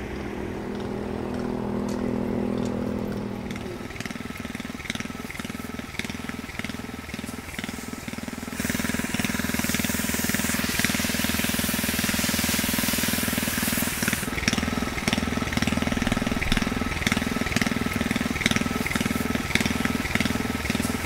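Small engine-driven crop-sprayer pump running steadily with a regular pulse about twice a second. From about nine to fourteen seconds in, a loud hiss of spray is added.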